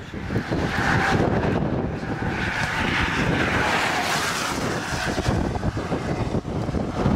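Strong wind rushing and buffeting the microphone, a loud, irregular rumble with a hissing rush that swells in the middle.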